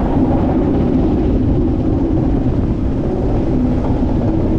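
Inverted roller coaster train climbing the lift hill: a steady mechanical drone of the lift with a low hum, holding even throughout.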